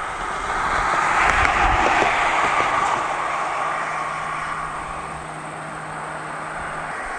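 A car passing on the road below, its tyre and engine noise swelling to a peak about one to two seconds in and then fading away. A faint steady low hum carries on under it from about three seconds in.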